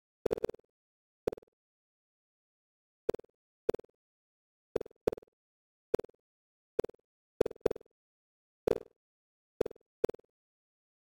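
Computer-generated bounce sounds of virtual boxes in a surround-sound test: short mid-pitched blips, about a dozen at irregular intervals, some in quick pairs, with silence between.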